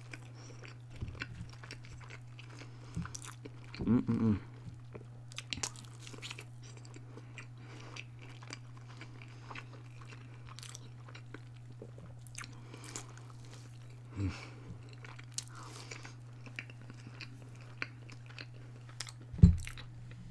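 Close-miked chewing and biting of breaded vegetarian chicken strips, with many small wet mouth clicks and crunches, and a brief voiced hum about four seconds in. A steady low hum sits underneath, and a single low thump near the end is the loudest sound.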